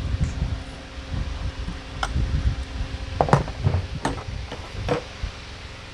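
Handling and rubbing noise, then several sharp metal clinks and knocks, the loudest a little past the middle. The sound comes from a T-handle socket wrench being taken off the filter plug of a sensor urinal flush valve and set down on a work table.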